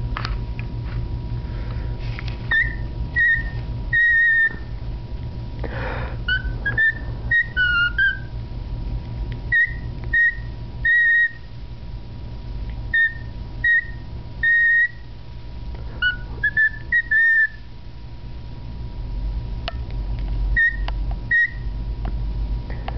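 Cockatiel whistling a learned tune in short phrases of clear notes, some held and some stepping down in pitch, with pauses of a second or more between phrases.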